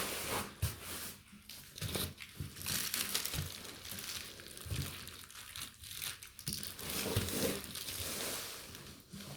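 Plastic bubble wrap crinkling and rustling unevenly, with many small crackles, as it is handled and wrapped around a laserdisc box.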